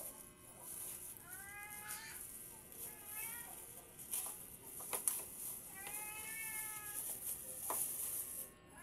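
A domestic cat meowing three times, the last call the longest, with a few sharp clicks or knocks in between.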